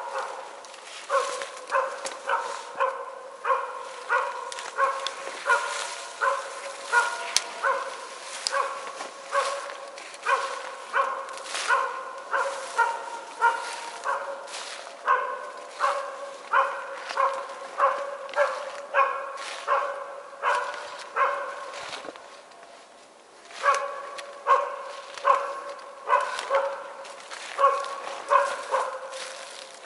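West Siberian Laika barking steadily and repeatedly, about one bark a second, falling silent for about two seconds two-thirds of the way through: a hunting dog baying at a moose it has found.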